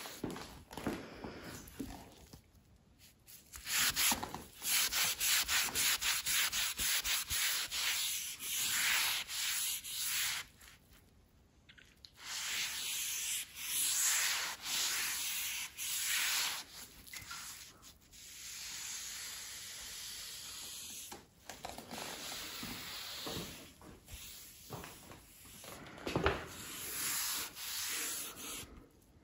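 Cloth rubbing hard on a quartz worktop in quick back-and-forth scrubbing strokes, in runs broken by short pauses.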